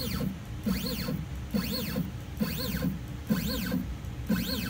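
X-Carve CNC's Y-axis stepper motors jogging the gantry in repeated short moves, about one a second. Each move is a whine that rises in pitch and falls back as the motors speed up and slow down, over a low hum.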